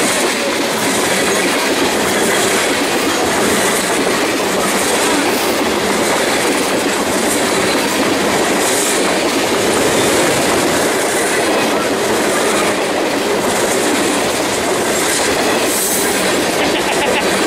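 Freight train of tank cars passing close by, a loud, steady noise of steel wheels running on the rails.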